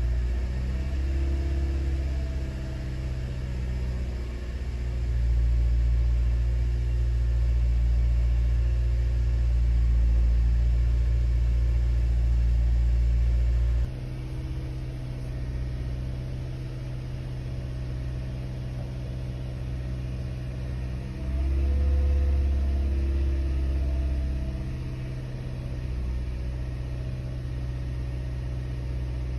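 2011 Toyota Corolla's four-cylinder engine running steadily at about 2000 rpm, heard from inside the cabin, its throttle held open by a bottle jack against the gas pedal while an oil-system carbon cleaner circulates. A low rumble under the engine note rises and falls in strength.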